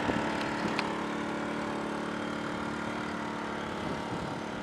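Dirty Hand Tools 800-watt inverter generator running steadily, a small engine's even hum.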